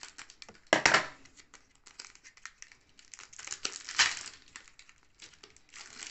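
Foil wrapper of a Pokémon booster pack crinkling as it is torn open and the cards are slid out, with loud crackling bursts about a second in and again around four seconds in.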